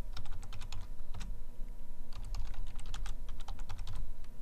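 Computer keyboard keys clicking as a password is typed: a quick, irregular run of keystrokes.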